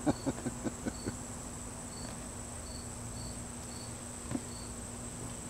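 Crickets chirping: a steady high-pitched trill with short chirps every half second to a second, and a single soft knock about four seconds in.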